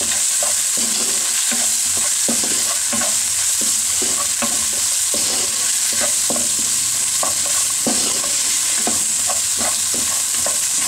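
Garlic cloves and masala sizzling in hot oil in a kadhai, with a steady hiss, while a wooden spatula stirs and scrapes them against the pan in irregular strokes.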